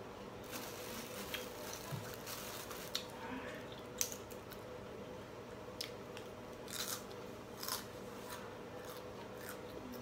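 Close chewing and crunching of food with small clicks and crackles from handling it by hand, over a faint steady hum.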